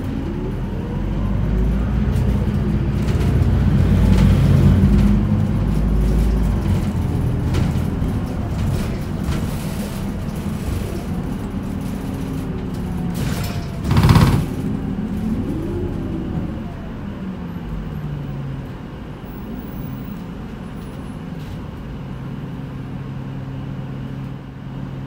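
Running sound inside an Isuzu Erga city bus with its four-cylinder diesel. The engine and drivetrain pitch rises and falls as the bus gathers speed and slows. A loud burst of noise comes about 14 seconds in, and the sound settles to a steady hum near the end.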